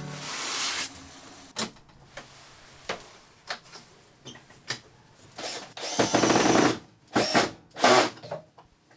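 Hand-held power tool run in several short bursts, the longest just under a second, after a few scattered clicks and knocks of handling.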